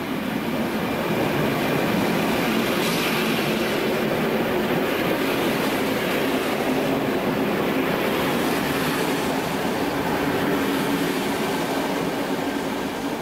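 ÖBB class 4030 electric multiple unit pulling out and passing close by: steady running noise of wheels on rail with a low electric hum, swelling in the first second and then holding steady.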